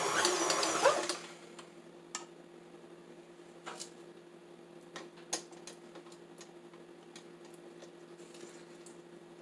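Utensil stirring blueberry muffin batter in a mixing bowl: scattered soft clicks and taps against the bowl over a steady low hum. A louder stretch of noise stops about a second in.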